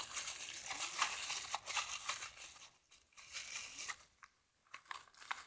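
Paper crinkling and rustling as balled-up scraps of paper bag are stuffed and pushed down into a taped paper squishy. The rustling thins out about halfway through to a few small crinkles and clicks.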